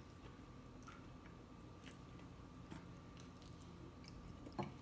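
Faint, soft chewing of a mouthful of seafood and grits, with scattered small wet mouth clicks. A brief louder click near the end.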